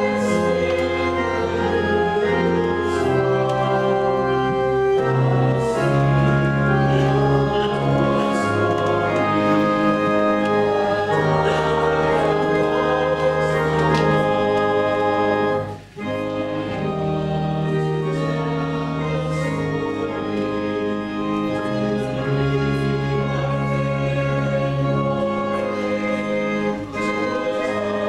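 Organ playing a slow communion hymn in held chords, with the bass moving every second or two and a brief break about halfway through.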